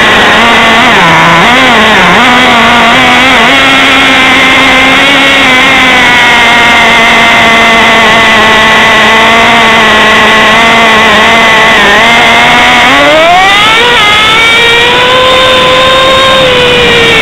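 Traxxas T-Maxx 2.5 RC truck's small two-stroke nitro engine running loud and buzzing, wavering in pitch at first, then holding a steady speed for about ten seconds. Near the end it revs up sharply to a much higher pitch and holds there.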